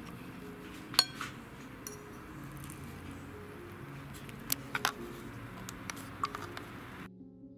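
A metal utensil clinking against a plate as a slice of cake is cut and served: one loud, ringing clink about a second in, then a quick cluster of lighter clicks near the middle and a few more after, over soft background music.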